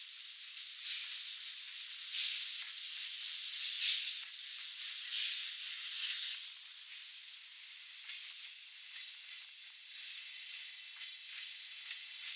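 Steam hissing from the 1930 C10 class No. 8 steam tank locomotive as it passes close by, loudest while the engine goes past. About six seconds in the hiss drops off to a lower, steadier level with faint clicks as the coaches roll by.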